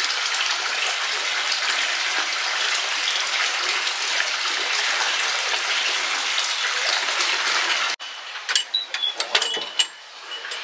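Steady rush of hot-spring water pouring into a rock-lined open-air bath. It cuts off suddenly about eight seconds in, and a few sharp clicks and knocks follow.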